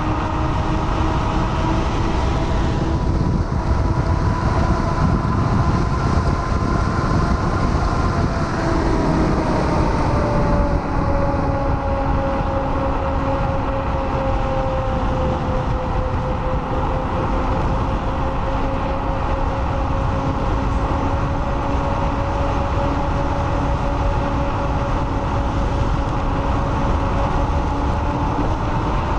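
Blade 10 electric scooter ridden at speed: hub-motor whine over tyre and road noise, with heavy wind noise on the microphone. The whine drops a little in pitch about nine seconds in, then holds steady.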